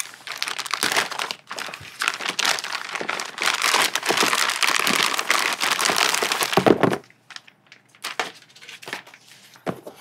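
Plastic packaging bag crinkling and tearing as it is cut and pulled open, loudest just before the two-thirds mark, then a few lighter rustles and clicks.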